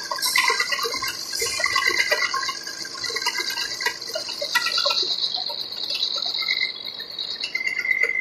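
Gear-cutting machine tool at work with coolant flowing: a steady hiss that drops slightly in pitch after about five seconds, with short high tones coming and going.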